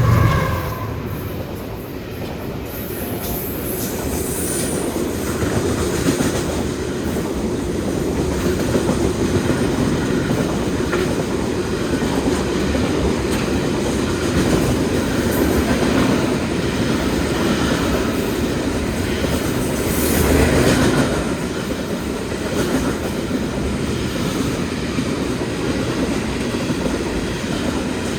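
Train running at speed: a steady rumble of wheels on rails with faint clicks from the track, swelling louder for a moment about twenty seconds in.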